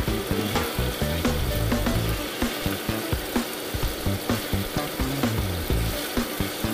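Cubes of fresh tuna sizzling as they fry in oil in a pot, with frequent sharp clicks and scrapes of a spatula and fork against the pot and bowl as the pieces are moved.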